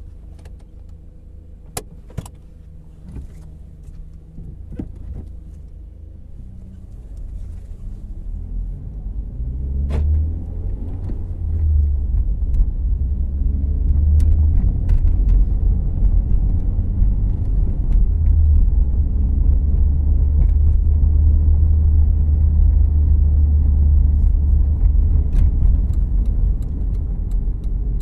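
Cabin sound of a 2014 Volkswagen Jetta Clásico: its 2.0-litre four-cylinder engine idles quietly with a few sharp clicks, then the car pulls away and the engine and road rumble grow steadily louder as it gets under way.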